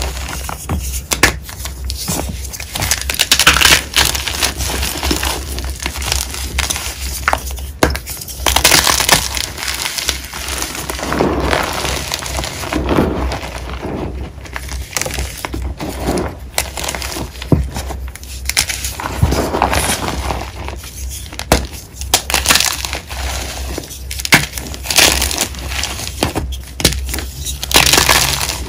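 Blocks of gym chalk crushed and crumbled by hand into a heap of chalk powder: an irregular run of dry crunches and sharp crackles, with softer squeezing of loose powder in between.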